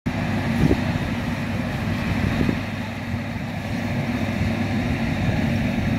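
Heavy diesel farm machinery running steadily, a low rumble.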